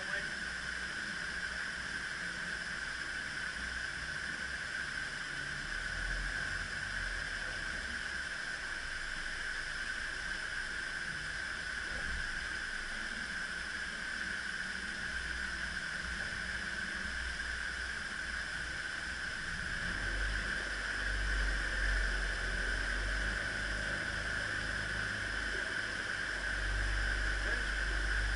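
Water rushing steadily through the open paddles of a canal lock's upper gates as the lock chamber fills. A low rumble comes and goes beneath it, heavier in the second half.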